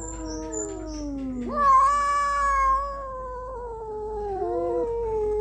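Tomcats yowling at each other in a standoff over a female. The caterwauls are long, drawn-out and wavering, running on without a break, and the loudest swells about two seconds in.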